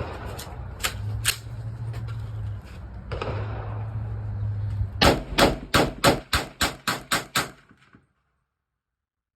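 Gunshots: a few single shots, then a quick string of about ten fired at roughly four a second.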